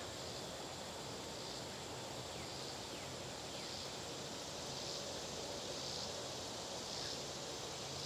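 Quiet outdoor ambience with a faint high-pitched insect chirp repeating about once a second over a steady low hum.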